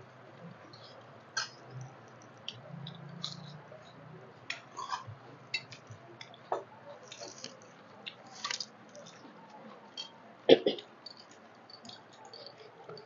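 Close-up eating by hand: wet rice and dal squished and mixed with the fingers on steel plates, with chewing and lip smacks. Short scattered clicks and smacks throughout, the loudest a sharp double knock about ten seconds in.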